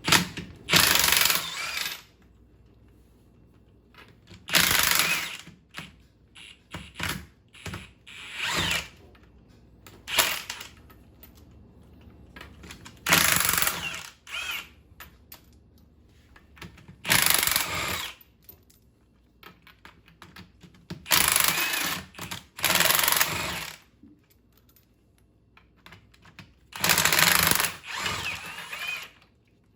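Impact wrench hammering in repeated short bursts, about a second each with pauses between, as it backs off the 5/8-inch bolts that hold a MerCruiser Alpha One Gen One stern drive in place.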